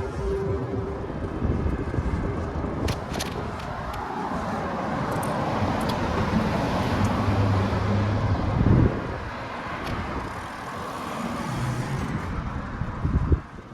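City street traffic: cars driving past, one swelling up and passing by near the middle, with two short low thumps, the second near the end.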